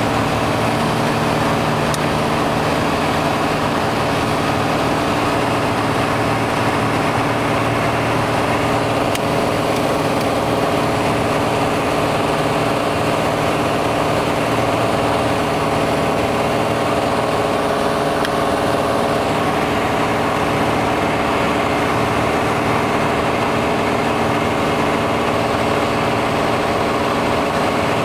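Piper Arrow's single piston engine and propeller running steadily in flight, heard inside the cabin as an even drone.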